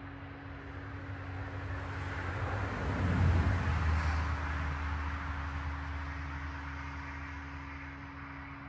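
A vehicle driving past: road and engine noise swells, peaks about three seconds in, then fades away. A steady low hum runs underneath.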